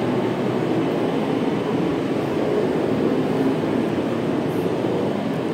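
A steady mechanical drone with a rushing hiss, unchanging in level.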